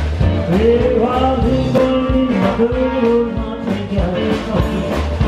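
A live rock and roll band playing: drum kit, electric guitar and upright double bass, with a man singing over them.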